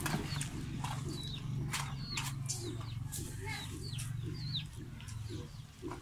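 Outdoor ambience: scattered short, high bird chirps over a steady low hum, with a few light clicks.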